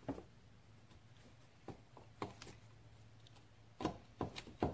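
Scattered light clicks and taps of engine parts being handled on a workbench, a few bunched together near the end, over a faint steady low hum.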